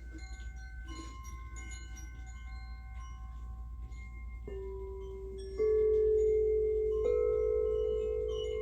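Sound-bath music: scattered light, bell-like ringing tones. Then, from about halfway, three deeper tones are struck one after another, each ringing on and overlapping the last; the second is the loudest.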